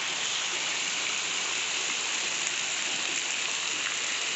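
Rain falling steadily on roofs and a wet street: an even, unbroken hiss.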